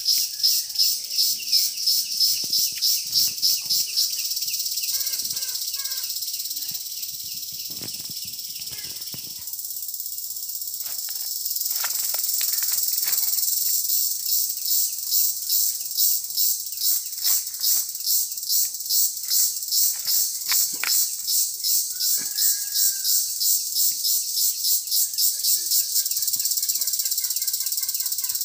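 Insects chirring loudly outdoors in a high, evenly pulsing buzz of about three to four pulses a second, which evens out into a steady hum for a few seconds early on before pulsing again. A few faint bird chirps sound under it.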